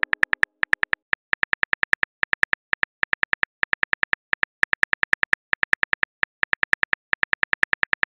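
Phone keyboard typing sound effect: a rapid run of short, pitched clicks, about six a second, one per letter as a text message is typed out, in uneven bursts with brief pauses.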